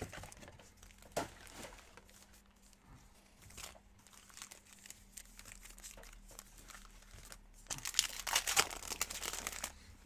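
Trading card pack wrappers crinkling and being torn open, with scattered handling crackles and a louder stretch of crinkling near the end.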